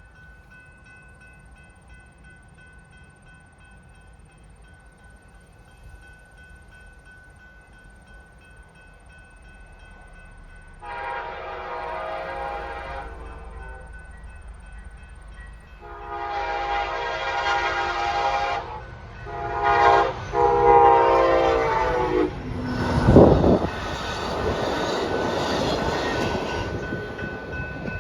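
Train horn sounding as the train approaches: a long blast, a second long blast, then a short one run into a final long one, the usual grade-crossing signal. The train then passes close by with loud, steady rolling noise of wheels on rail and a heavy low thump early in the pass.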